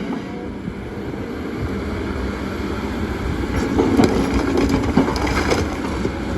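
Kobelco excavator running steadily under load while it shifts stones. Midway there are a few knocks and grinding, heaviest between about three and a half and five and a half seconds in.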